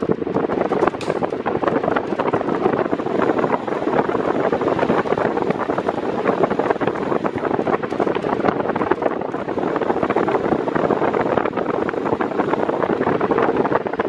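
Arno Silence Force 40 cm electric fan running, a steady rush of air blowing onto the microphone.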